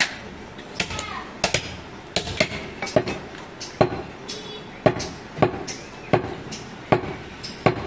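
Mutton being chopped with a heavy butcher's knife on a wooden log chopping block: about a dozen sharp chops, irregularly spaced, roughly one or two a second.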